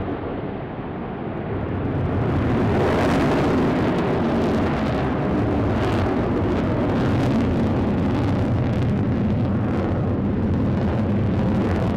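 Jet noise from a twin-engine F/A-18 Super Hornet-type fighter in a display climb. The engines dip slightly and then grow louder about two seconds in, holding a steady roar to the end.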